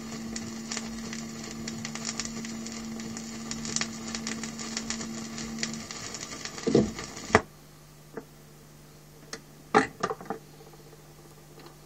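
Vinyl record surface noise in the run-out after the track: a steady crackle of fine clicks over a faint hum, which stops abruptly about seven seconds in. A few soft knocks follow, the loudest about ten seconds in.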